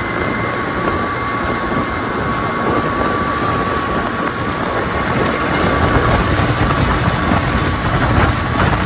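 Small motorcycles riding along a road, engine noise mixed with rushing wind on the microphone; it gets louder about halfway through.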